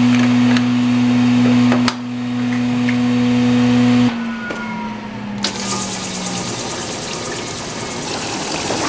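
Optical-lab lens-surfacing machine: a loud steady electric hum cuts off about four seconds in, a tone falls away as it winds down, then water sprays with a steady hiss from about five and a half seconds in. A few sharp clicks come early, as parts of the machine are handled.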